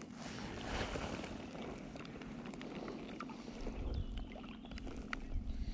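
Water lapping and splashing against a small craft on a lake, with scattered small clicks and a steady low hum underneath. Low rumbles, like wind on the microphone, build about four seconds in.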